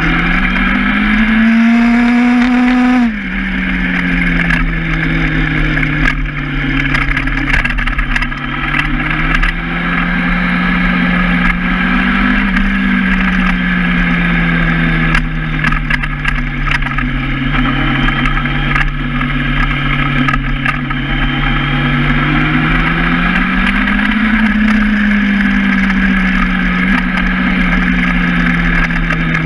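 Honda Hornet motorcycle's inline-four engine under way. Its pitch climbs for about the first three seconds, drops abruptly, then settles at steady cruising revs that rise and fall gently with the speed. Wind rush is heard underneath.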